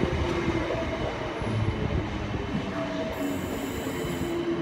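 Suburban electric multiple-unit train rolling slowly alongside the platform: a steady rumble of wheels on rail, with short pitched squeals coming and going.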